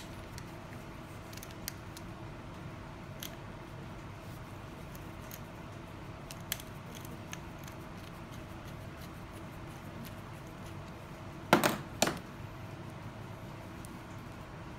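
Chuck key working the small keyed drill chuck of a flex-shaft rotary tool handpiece: scattered faint metal clicks, then two louder metal clinks close together about three-quarters of the way through. A steady faint hum runs underneath.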